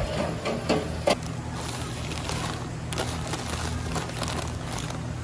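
Steady low roar of a gas burner under a large aluminium pot of water. A few sharp clatters come in the first second, and lighter rustling follows as gloved hands handle bundles of dried noodles.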